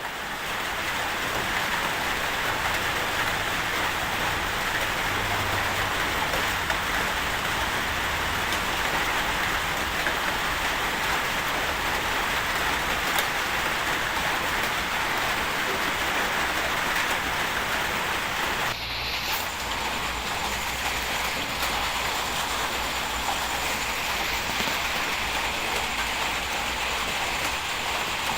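Heavy bulldozer working: a steady diesel drone under a dense, continuous clatter and crackle of tracks and material, with a brief break about two-thirds of the way through.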